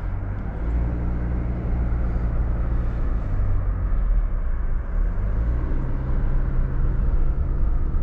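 Subaru car's flat-four engine running at low revs, heard from inside the cabin. Its steady hum steps up in pitch a little past halfway as the car pulls away.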